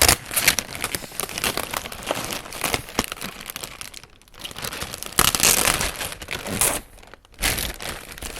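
Packaging being handled during an unboxing: irregular crinkling and rustling of wrapping, with brief lulls about four and seven seconds in.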